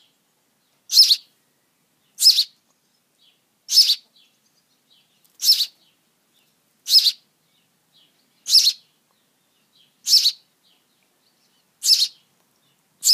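Twelve-day-old sparrow chick giving sharp, high-pitched begging chirps, about one every second and a half, each a quick double note: the nestling begging to be fed.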